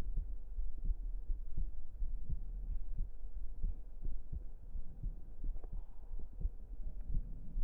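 A human heartbeat heard close up: regular low thumps, often in lub-dub pairs, over a steady low rumble.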